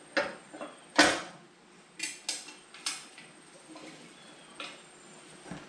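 Irregular metal clinks and knocks as a bolt is worked into the metal cable cover on a four-post car lift post, with a sharp knock about a second in the loudest.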